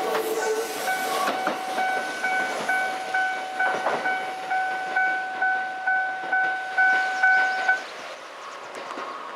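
Japanese level-crossing alarm ringing in a steady beat of about two strokes a second, then stopping about eight seconds in. A Kintetsu train's wheels clatter over the rails as it pulls away beneath it.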